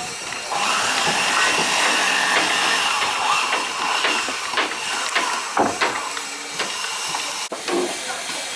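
Boatyard work noise: a steady hiss with a faint high whine, and scattered sharp wooden knocks.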